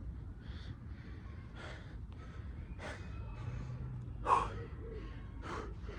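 A man breathing hard from exertion during weighted burpees: short, sharp breaths about once a second, with a louder one a little after four seconds in.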